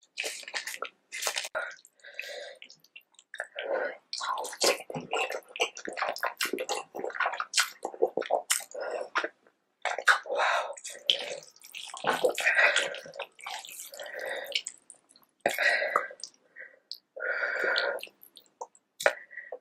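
Close-miked wet eating sounds: slurping, squishing and chewing of saucy food, in short irregular bursts with small clicks.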